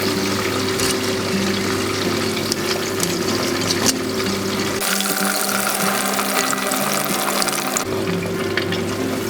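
Hot cooking oil sizzling and crackling from deep-frying chicken, over soft background music.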